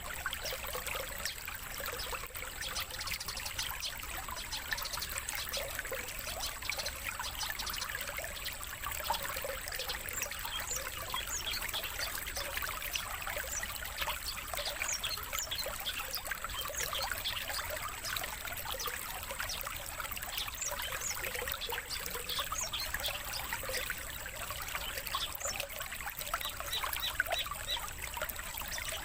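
A steady trickle of running water with many quick, high songbird chirps and twitters over it: a lure and master-song track of the kind used to draw and train long-tailed shrikes (cendet) and other competition songbirds.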